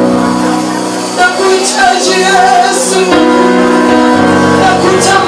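Live church worship music: singing over held instrumental chords that change every second or two.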